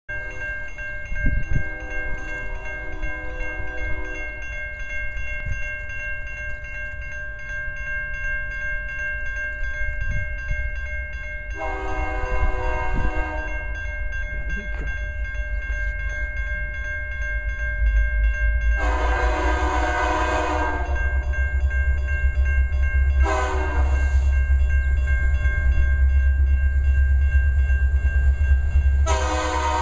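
Diesel locomotive horn on an approaching BNSF SD70MAC freight, sounding five blasts as it nears a grade crossing: long, long, long, short, then a final long one starting near the end, the first one fainter. A crossing bell rings steadily throughout, and a low locomotive rumble grows louder from about two-thirds of the way in as the train draws close.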